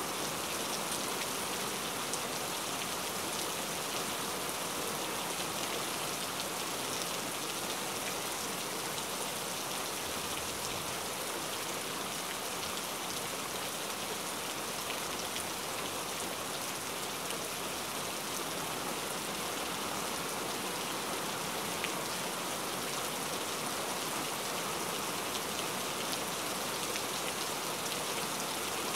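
Steady rain falling: an even hiss with scattered faint drop ticks, unchanging throughout.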